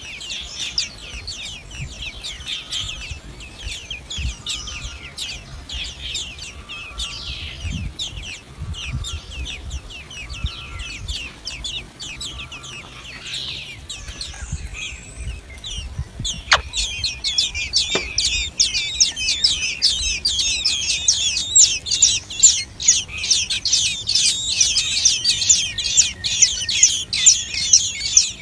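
Common blackbird nestlings calling in the nest: a continuous stream of rapid, high-pitched cheeping, typical of chicks begging for food. About halfway through the cheeping becomes louder and denser.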